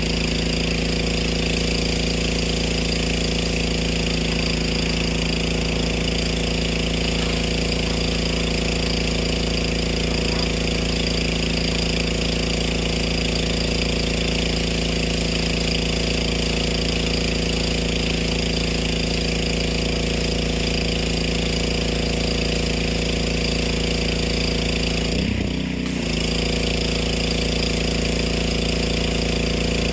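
Craftsman gas pressure washer's small engine running steadily under a constant high hiss of spray. Near the end its note dips briefly for about a second, then recovers.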